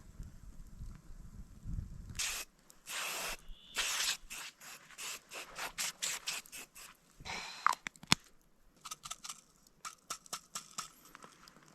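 Irregular rustling and scraping of objects being handled, a run of short noisy bursts with a sharp click about eight seconds in, after a low rumble in the first two seconds.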